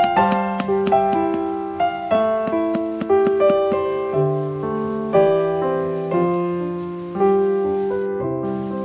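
Background piano music: a melody of struck notes and chords, each ringing and fading before the next.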